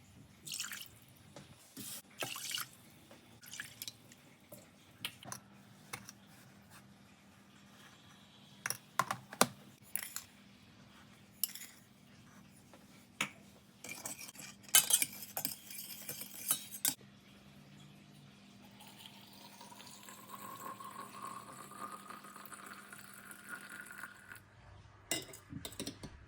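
Glass and utensils clinking in short, separate knocks, then liquid poured into a glass jar, its pitch rising steadily as the jar fills.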